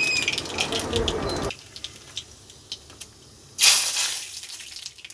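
Nigella seeds and a dried red chilli sizzling and crackling in hot oil in a kadai as the tempering spices fry. The crackling is loud at first and dies down after about a second and a half, and a louder surge of sizzling comes in about three and a half seconds in, then fades.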